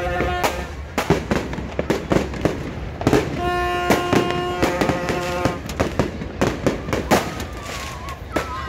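New Year's fireworks going off in rapid, irregular bangs and cracks. A steady horn-like note sounds over them twice: right at the start and again from about three and a half to five and a half seconds in.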